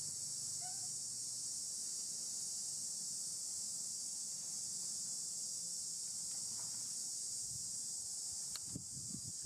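Steady, high-pitched drone of insects calling. Near the end, soft low rustling comes in underneath.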